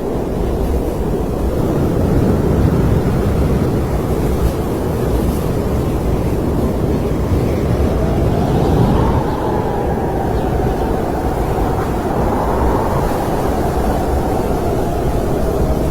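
Snowstorm wind blowing in a steady low roar, with a faint howl that rises and wavers from about halfway through.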